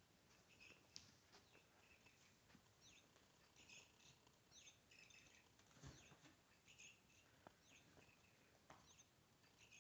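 Chirping cat toy giving faint, short bird-like chirps, about one or two a second, with a few soft taps.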